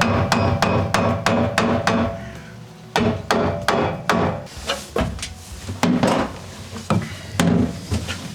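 Hammer blows in quick runs of about three to four strikes a second, with short pauses between runs and more widely spaced blows near the end.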